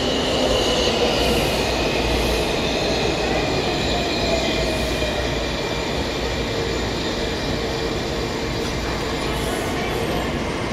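A Washington Metrorail train, a 3000-series car, rolls into an underground station and slows to a stop. It gives a steady rumble with a whine that falls in pitch as it slows.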